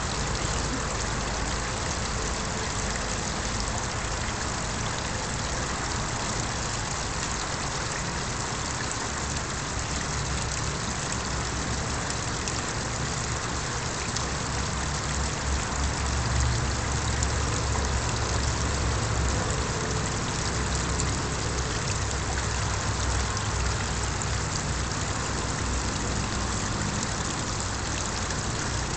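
Small garden-pond waterfall splashing steadily, with a low rumble underneath that swells through the middle.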